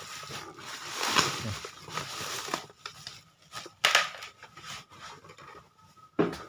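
Cardboard box being handled and opened: irregular rustling, scraping and tearing with sharp clicks, the loudest about four seconds in.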